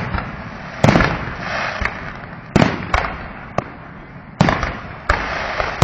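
Fireworks going off: about six sharp bangs at uneven gaps of half a second to two seconds, with crackling and hiss trailing after each.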